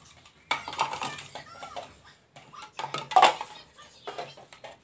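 White disposable cups being flipped off the edge of a hard tabletop and knocking down onto it in quick, irregular clattering taps, with a louder cluster about three seconds in.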